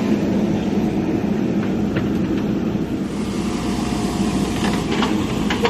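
JCB 3DX backhoe loader's diesel engine running steadily under work, with a few sharp knocks in the last second or so.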